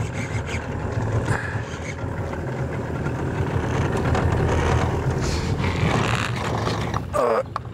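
A boat's outboard motor running steadily, growing louder over the first few seconds.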